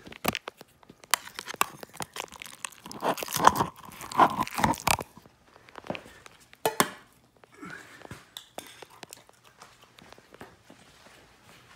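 A dog eating wet food from a stainless steel bowl: chewing and crunching mixed with sharp clicks and knocks. The eating is busiest and loudest in a stretch a few seconds in, then turns to scattered, quieter clicks.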